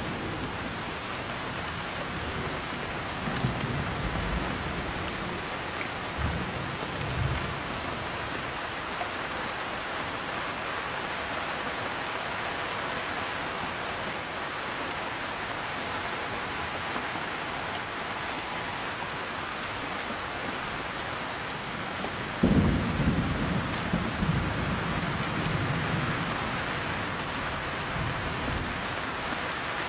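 Steady heavy rain with rolling thunder: low rumbles a few seconds in, and a louder, sharper thunderclap about two-thirds of the way through that rumbles on for several seconds.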